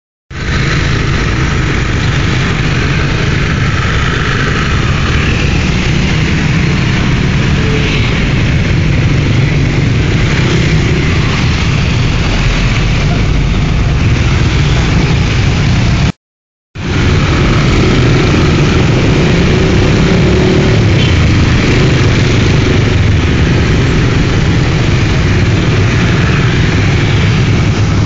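Motor scooter riding in dense motorbike and car traffic: steady engine and road noise with a strong low rumble. The sound cuts out completely for about half a second around the middle.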